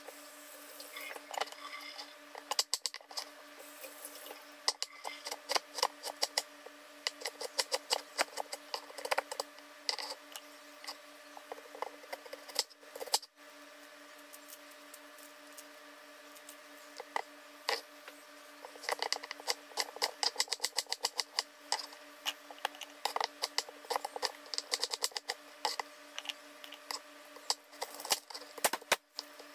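Kitchen knife chopping rapidly on a cutting board in two bouts of quick knocks, with a quieter pause between, over a steady hum.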